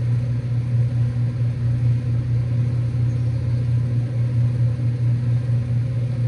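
Scroll compressors of two 2023 Ruud Achiever two-ton R410A outdoor units running together, a steady low hum.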